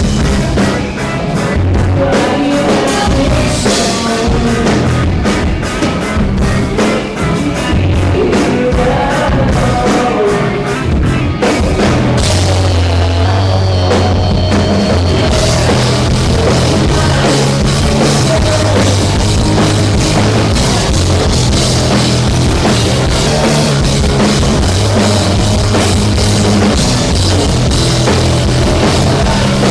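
Live rock band playing loud at a sound check, with a driving drum kit. The drumming drops out briefly about twelve seconds in while low bass notes carry on, then the full band comes back in.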